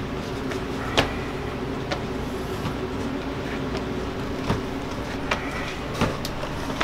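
A steady machine hum, with a few sharp knocks as a batch of hot candy-cane candy is thrown over a wall hook and pulled by hand; the loudest knock comes about a second in.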